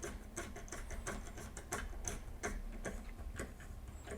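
Irregular light clicking and ticking, a few clicks a second, from small M3 screws being worked into a 3D-printed plastic bracket by hand.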